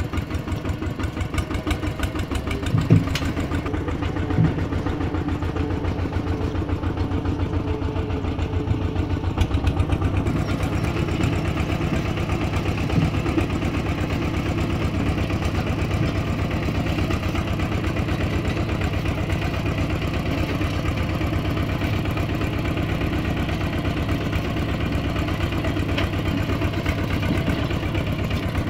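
Two-wheel walking tractor's single-cylinder diesel engine chugging steadily in a rapid, even beat as it tows a trailer, with a few sharp knocks about three and four seconds in.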